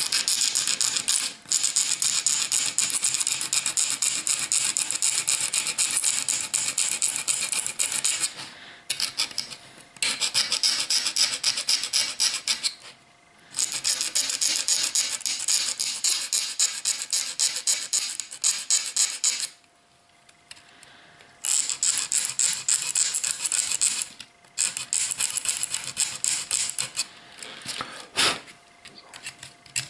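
Small hand file rasping on the plastic interior of a Trix Express express coach in quick strokes, smoothing a snapped-off edge straight. It comes in several bouts with short pauses between them.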